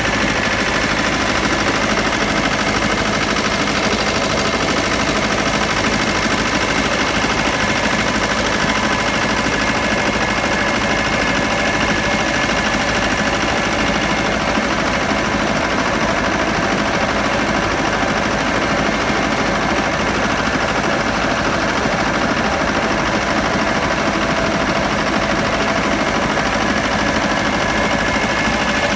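Pasquali 996E tractor's diesel engine running steadily at constant speed as the tractor drives along a paved road.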